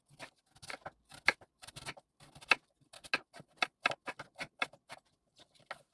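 Kitchen knife slicing raw Korean radish (mu) into slabs about 1 cm thick, each stroke ending in a knock on a wooden cutting board. A quick, uneven run of cuts, about four a second, with a short pause near the end.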